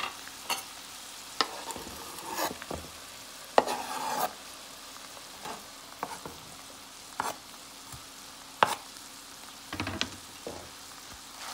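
Chicken thighs and peas frying in a stainless steel pan with a steady sizzle, while chopped onion is scraped in from a cutting board. A utensil knocks and scrapes against the pan every second or so, with a longer scraping rattle about four seconds in.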